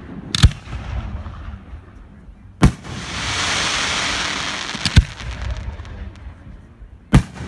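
Aerial fireworks shells bursting overhead: four sharp bangs a little over two seconds apart, with a hiss that swells and fades between the second and third bangs.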